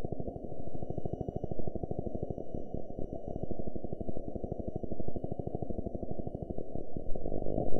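Low, muffled rumbling noise with a fast, even flutter, cut off above the low range, with faint steady high tones over it.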